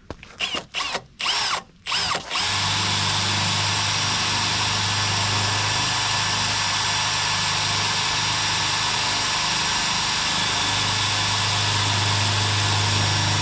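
Power drill boring a hole through a body-kit side skirt: a few short revs on the trigger, then running steadily under load.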